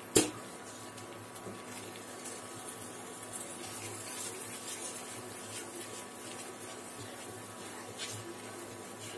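Wooden spatula stirring and scraping thick onion chutney paste around a nonstick frying pan, opening with a single sharp knock of the spatula against the pan.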